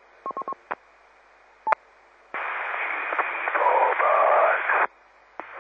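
Amateur FM repeater audio between overs: a click and four quick beeps, a couple more clicks, then a keyed-up transmission of hiss with wavering tones that lasts about two and a half seconds and cuts off abruptly.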